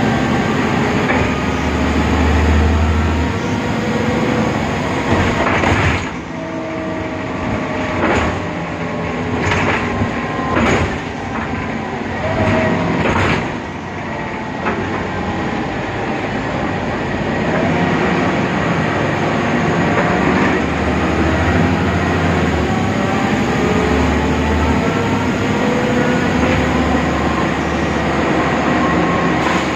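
BredaMenarini Avancity Plus city bus with a Deutz diesel and ZF 6HP Ecomat automatic gearbox, heard from inside while driving. The engine drones, with whines that rise in pitch as the bus gathers speed. A run of knocks and rattles comes between about six and fourteen seconds in.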